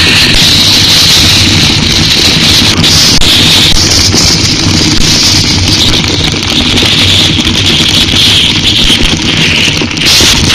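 Yamaha Serow 250 single-cylinder engine running under way, with steady hissing wind and rain noise on the microphone.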